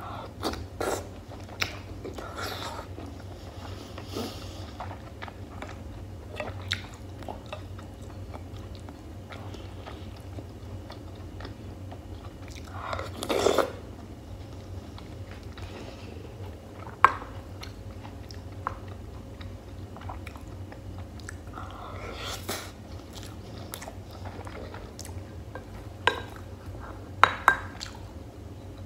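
Close-miked chewing of beef stewed in tomato sauce: soft wet mouth sounds with a couple of louder, juicier bites partway through, and scattered sharp clicks, over a steady low hum.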